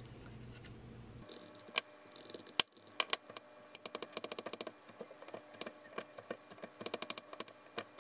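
Chopsticks clicking and scraping against a glass bowl as instant bibim-myeon noodles are tossed with their sauce. Quick irregular runs of sharp clicks start about a second in.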